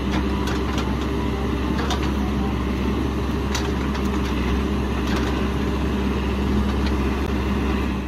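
Caterpillar 416F backhoe loader's diesel engine running steadily while the backhoe arm digs, with a few faint clicks.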